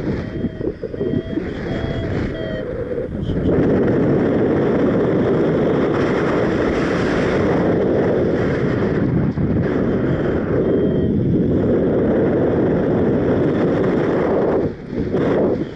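Strong wind buffeting the microphone during a paraglider flight, a loud steady rushing. A paragliding variometer beeps in short, slightly rising chains in the first few seconds and again about two-thirds through, the sign of climbing in lift.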